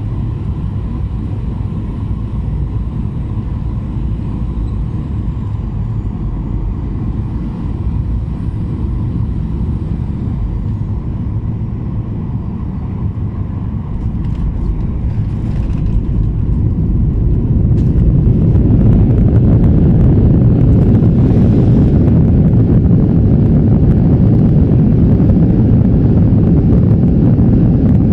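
Cabin noise inside a Skymark Boeing 737-800 airliner: a steady low rumble of the engines and airflow, which grows much louder from about 17 seconds in and stays loud.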